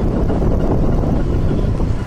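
Wind buffeting a handheld phone's microphone on a moving scooter, a steady loud rumble, with the scooter running underneath.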